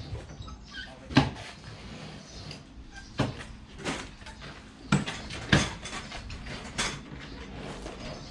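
A series of about six separate hard knocks and thumps of heavy objects being handled and set down, the loudest about a second in.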